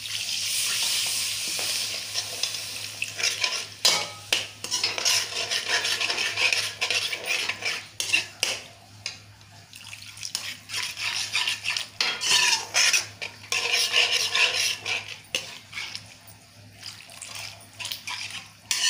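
Hot water poured from a steel pot into a metal kadai of frying yogurt masala, hissing for the first few seconds. A metal slotted spoon stirs and scrapes against the pan, clinking repeatedly.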